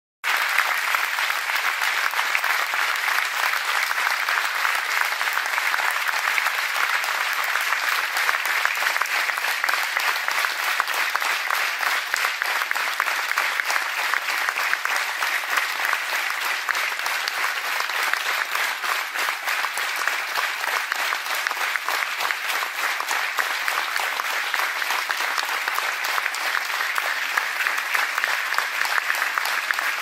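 A crowd applauding, many hands clapping in a dense, steady patter, with whistling from the audience mixed in.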